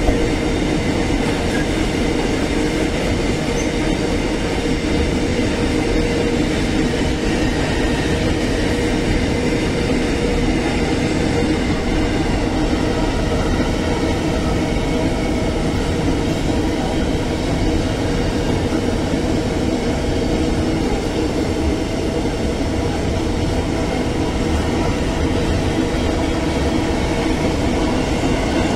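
Empty iron-ore wagons of a freight train rolling past close by: a steady, continuous rolling noise of steel wheels on the rails.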